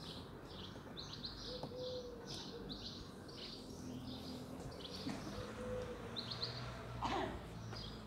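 Small birds chirping repeatedly in short high bursts, with a soft low cooing note every few seconds, and a brief louder sound about seven seconds in.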